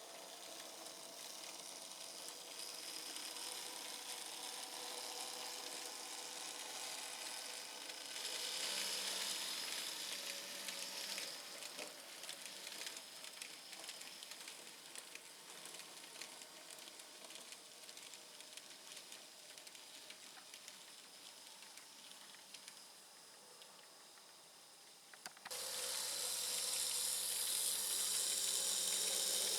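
Z-gauge model train running on its track: a faint, steady hissing rattle of the tiny motor and wheels. About 25 seconds in it changes suddenly to a louder hiss over a low steady hum.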